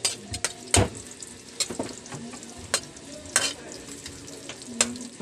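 Vegetables sizzling in a hot wok as a metal spatula stir-fries them, with sharp clacks of the spatula striking the pan about seven times at irregular intervals.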